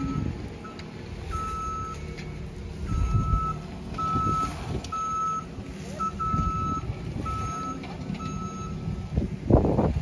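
A work vehicle's reversing alarm beeping at an even pace, about one beep every two-thirds of a second, over the low rumble of an engine. The beeping stops shortly before a loud thump near the end.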